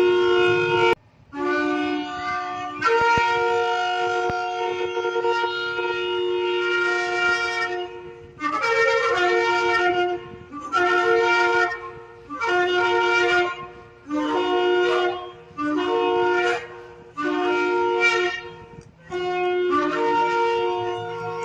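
Shofar (ram's-horn trumpet) being blown: long held blasts, then a run of about seven short, separate blasts roughly every second and a half, then a long blast again near the end.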